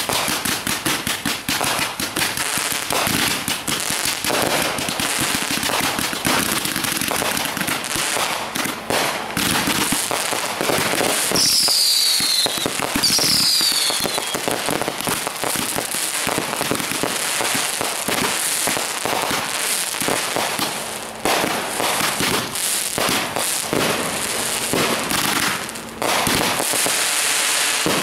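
Backyard consumer fireworks going off in quick succession: a dense stream of bangs and crackling, with two short falling whistles about halfway through.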